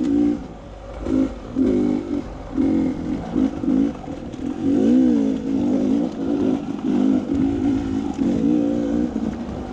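Dirt bike engine revving up and down in short bursts as the rider blips and rolls the throttle through a technical trail section, its pitch rising and falling.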